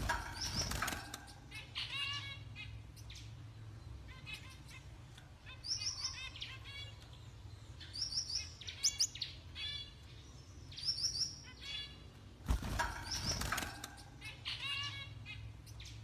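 Gouldian finch calling in short chirpy phrases every second or two, with thin high notes, over a low steady hum. A brief louder rustle about twelve and a half seconds in.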